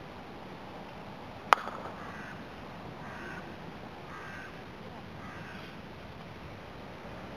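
A croquet mallet strikes the ball once with a sharp crack about a second and a half in. A bird then calls several times in the background.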